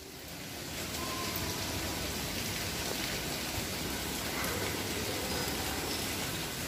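Heavy rain falling steadily: a dense, even hiss that swells in over the first second.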